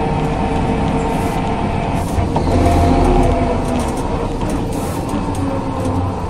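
Ikarus 415 city bus's DAF LT 160L six-cylinder diesel engine and ZF 4HP 500 automatic gearbox running, with a steady whine alongside the diesel note. The sound swells louder about two and a half seconds in, then eases back.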